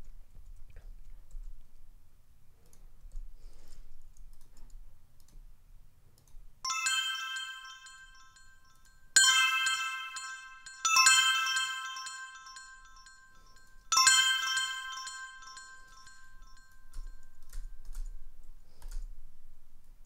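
Synthesized bell notification sounds played back: four bright chime-like strikes, each ringing with many overtones and fading over a second or two. Faint mouse and keyboard clicks come between them.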